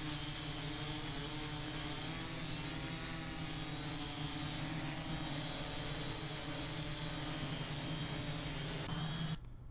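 Large camera-carrying multicopter's motors and propellers whirring steadily as it hovers, the pitch wavering slightly. The sound cuts off suddenly just before the end.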